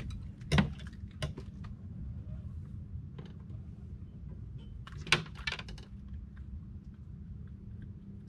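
Fishing gear being handled on a small boat's deck: a few sharp clicks and knocks, the loudest about half a second in and again about five seconds in, over a steady low rumble.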